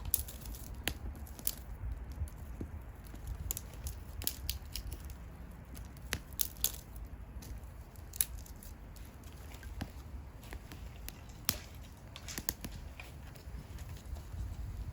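Wood bonfire crackling: irregular sharp pops and snaps, a few louder than the rest, over a steady low rumble.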